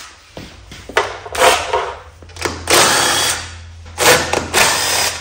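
Cordless power driver spinning bolts out of a lawn tractor engine cover in three bursts, about a second each.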